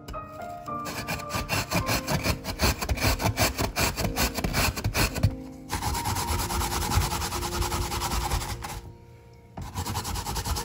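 A carrot being grated on a plastic grater with spiked teeth, in quick back-and-forth scraping strokes. The scraping breaks off briefly about halfway and again near the end, then starts again.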